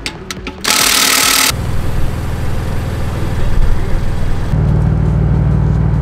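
A few clicks, then about a second in a Milwaukee cordless impact wrench hammers briefly, running a BMW M4 wheel bolt home against the wheel spacer. It is followed by a steady low drone with a rhythmic pulse that grows louder near the end.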